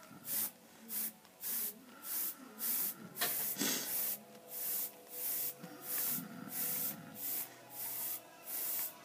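Airbrush spraying paint in short, regular trigger bursts, a hiss about every half-second, as paint is sprayed past a flame stencil held just off the helmet.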